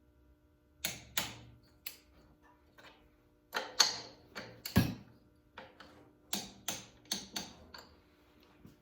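Torque wrench clicking as cylinder head bolts are tightened in sequence to 30 foot-pounds on a new head gasket. The clicks come singly and in short pairs at an uneven pace.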